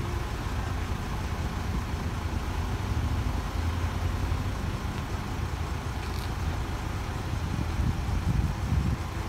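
A motor vehicle running: a steady low engine and road rumble.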